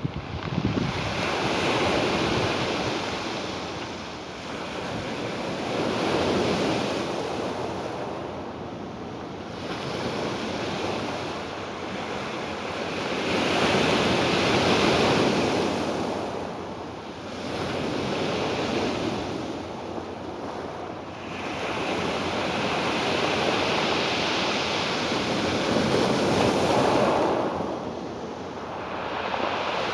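Ocean waves breaking and washing on a shore, swelling and ebbing every four to five seconds.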